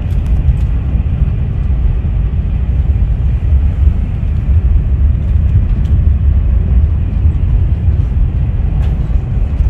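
Steady low rumble of a KTX high-speed train heard from inside the passenger cabin while it runs, with a few faint clicks of the phone being handled near the start and near the end.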